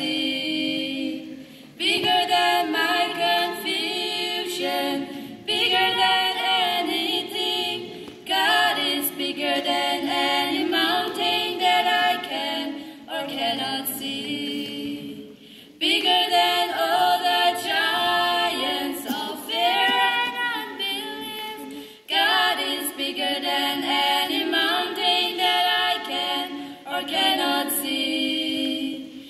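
Two girls singing a duet without accompaniment into a microphone, in sung phrases of a few seconds with short breaks for breath between them.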